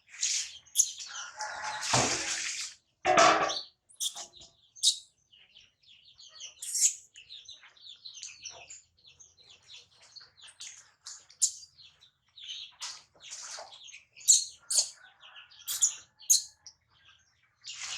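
Newborn baby monkey squeaking and chirping repeatedly in short high calls, with two short louder noises about two and three seconds in.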